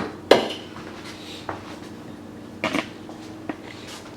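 Several short knocks and clinks of hard kitchen items being handled, the loudest about a third of a second in, over a faint steady hum.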